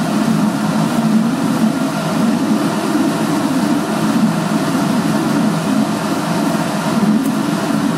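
Inline duct fan running steadily, sucking air out of the vortex box through its single suction hole: a constant low hum with rushing air.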